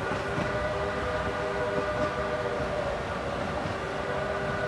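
Durango & Silverton narrow-gauge train cars rolling along the rails, a steady rumble with a held high whine of several pitches over it.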